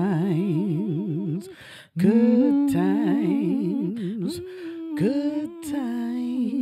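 Two voices singing wordless notes together a cappella in harmony, with a wide, fast vibrato. They stop for a moment about two seconds in, then carry on through a longer held note.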